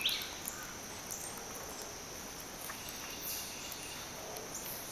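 Outdoor garden ambience: a steady insect chorus, a loud bird call ending right at the start, and scattered faint chirps and clicks.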